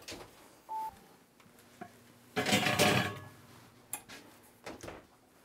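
A wall oven's electronic control panel beeps once, a short clear tone, with a fainter blip about a second later; then comes a louder clattering rush lasting nearly a second.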